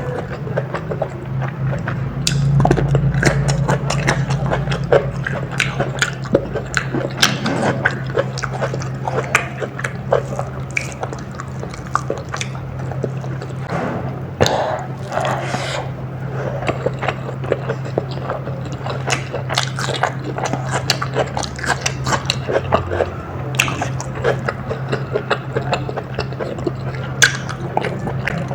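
Close-miked mouth sounds of eating biryani and raw mango: irregular wet chewing, smacking and clicking, over a steady low hum.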